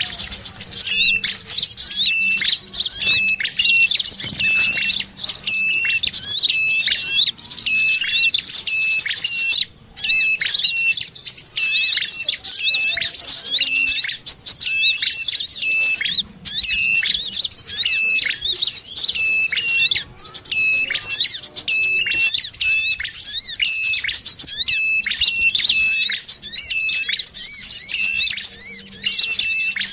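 Bird-lure recording mixing the calls of ashy tailorbird (prenjak kepala merah) and brown-throated sunbird (kolibri kelapa) with sogon chatter: a dense, unbroken stream of high chirps over a short lower note repeating about twice a second. The looped track drops out briefly twice.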